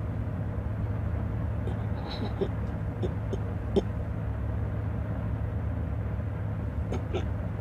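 A low, steady rumbling drone with a few faint ticks.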